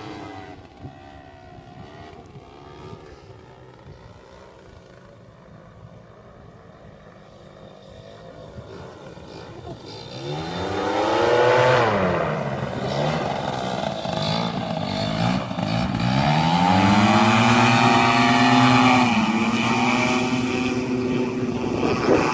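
Paramotor's AC Nitro 200 two-stroke engine flying by low: faint at first, it grows loud about ten seconds in. Its pitch sweeps down and back up, then it runs loud and steady, dropping in pitch again near the end.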